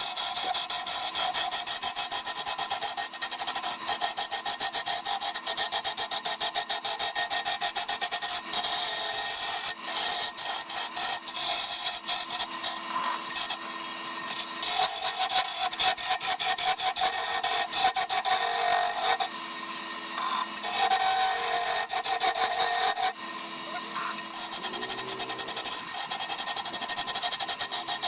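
Woodturning tool cutting wood on a wood lathe: a loud, rasping scrape in quick regular pulses, stopping briefly twice.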